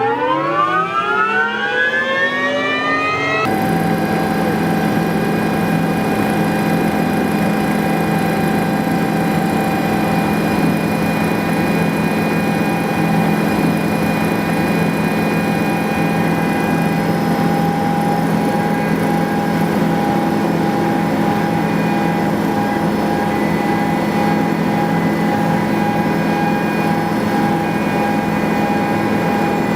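Helicopter turbine engine spooling up with a rising whine. A few seconds in, it switches suddenly to the steady drone of the helicopter running, with a constant whine over the rotor and engine noise.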